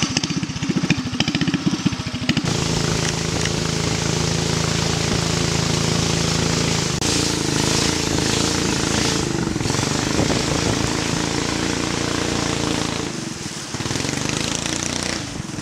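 Boat engine running: a throbbing note at first, then opened up about two seconds in to a steady, higher drone with a hiss of spray. It eases off briefly near the end.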